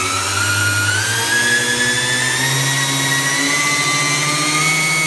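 Triple AstroFlight 3220 electric motors driving a belt reduction unit, spinning up on the bench: a steady high whine that rises slowly in pitch as the speed climbs, with a lower hum beneath it that also steps up.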